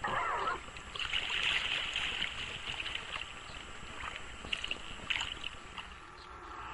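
Sea kayak moving through choppy sea water: water swishing and splashing along the hull and paddle blades, with wind buffeting the microphone. The sound fades out near the end.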